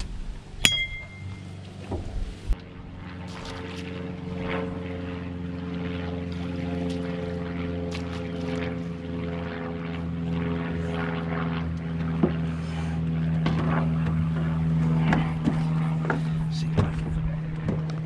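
A boat motor running steadily, its hum growing fuller after about three seconds. About a second in, a sharp knock with a brief metallic ring as the bowfin is struck with a club to kill it, followed by a few lighter knocks.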